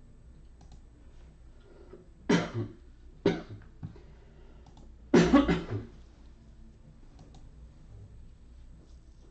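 A person coughing three times, the third a longer cough of several quick bursts.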